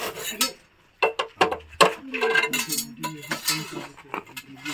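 Metal objects clinking and knocking as they are shifted about, many quick sharp strikes with a brief pause just before a second in, over voices in the background.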